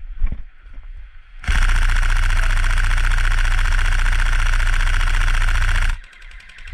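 Airsoft electric gun firing one long full-auto burst of about four and a half seconds: a fast, even buzz of shots that starts suddenly after a second and a half and stops sharply. Light clicks and knocks come before it.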